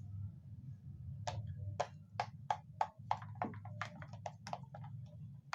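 A plastic spoon stirring thin lotion in a plastic bowl, clicking against the bowl in quick taps about two to three a second, starting about a second in, over a low steady hum.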